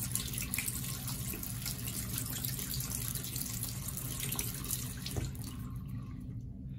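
Water running from a bathroom sink faucet over hands and small aerator screens into the basin, shut off with a click about five seconds in.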